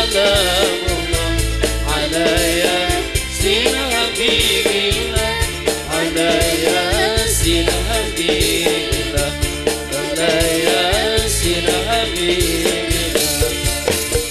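Live band music with a steady drum beat, bass and keyboard under a wavering sung melody.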